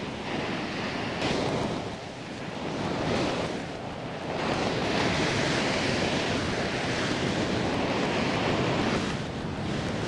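Ocean surf breaking and washing on the beach and rocks below, a noisy rush that swells and ebbs, loudest from about the middle to near the end, with wind buffeting the microphone.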